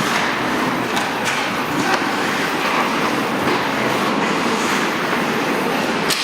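Live ice hockey play in an arena: a steady din of play with several sharp knocks, the loudest just before the end.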